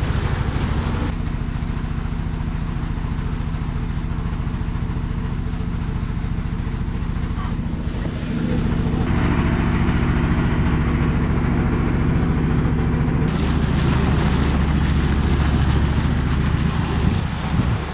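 Inboard engine of a lake tourist boat running at steady speed, getting louder about halfway through, with wind noise on the microphone.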